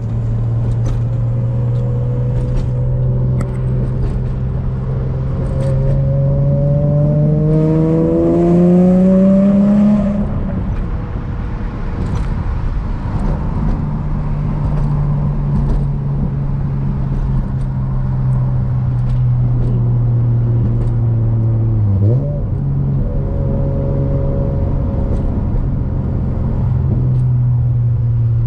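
Infiniti G35's 3.5-litre V6 engine and exhaust heard from inside the cabin. The revs climb steadily for several seconds under acceleration, fall away sharply about ten seconds in, then hold at a steady cruise, with a quick dip and rise in the revs near twenty-two seconds in.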